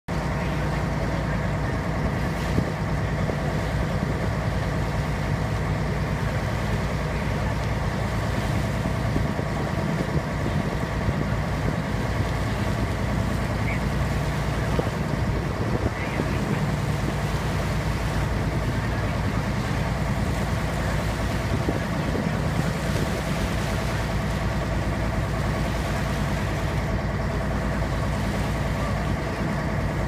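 Motorboat engine running at a steady speed while under way, with the rush of water alongside the hull.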